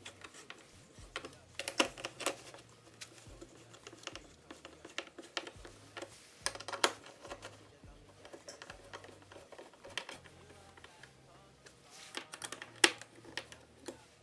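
Irregular sharp clicks and light knocks of hand tools and metal parts being handled while a DeWalt DW735 thickness planer is reassembled by hand.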